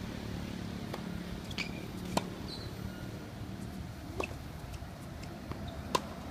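Tennis racket strikes on a ball, four sharp hits spread about two seconds apart, as in a rally, over a steady low hum of background traffic.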